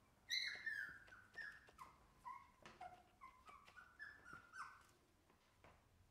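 Shiba Inu puppies play-wrestling, with a rapid string of short, high-pitched yelps, each one falling in pitch, for about four and a half seconds; the first is the loudest.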